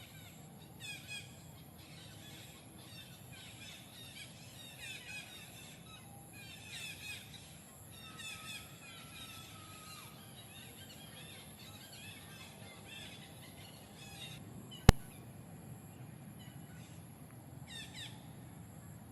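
Birds chirping outdoors in short, quick phrases that come back about every two seconds, over a steady low background hum. A single sharp click about fifteen seconds in is the loudest sound.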